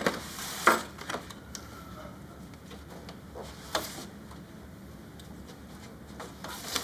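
A kitchen knife cutting through a crumble cake on a cardboard tray: a few scattered knocks and scrapes as the blade presses down through the crumb and meets the board, the sharpest just under a second in, with quiet room tone between.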